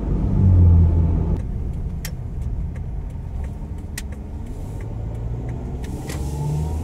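A car driving, heard from inside the cabin: a steady low engine and road rumble, loudest in the first second or so, then easing off. A few faint clicks, and a faint rising whine near the end.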